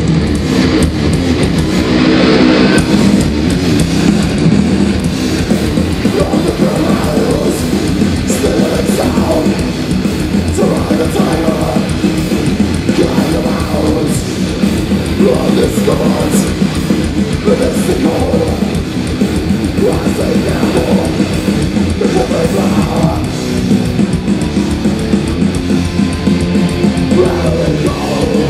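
Death metal band playing live: heavily distorted electric guitars, bass and drums in one loud, continuous wall of sound, heard from within the audience.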